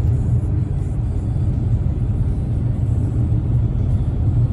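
Steady low rumble of road and engine noise inside the cabin of a 2018 Dodge Challenger AWD driving at speed.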